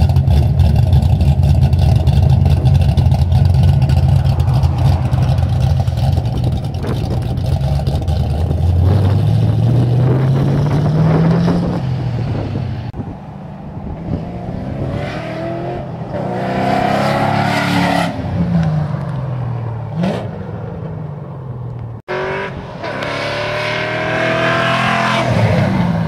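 1995 Ford Mustang GT's 5.0-litre pushrod V8, fitted with BBK shorty headers, a Magnaflow X-pipe and dumped Magnaflow Magnapack mufflers, idling loudly, then accelerating away with its pitch rising through the gears. Later it drives past again, its pitch rising and then falling.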